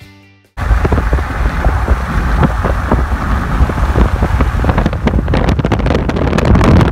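Loud wind rush on the microphone with road rumble from a moving car, cutting in suddenly about half a second in.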